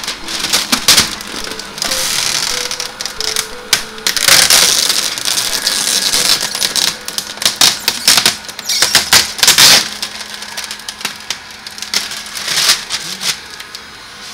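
Old window tint film, a thin plastic sheet with adhesive, crackling and crinkling as it is pulled free of a car door's glass and crumpled by hand, in several bursts of rapid sharp crackles.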